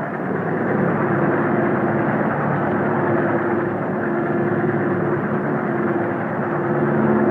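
Passenger train running at speed, a steady rumble and rush with a low held hum.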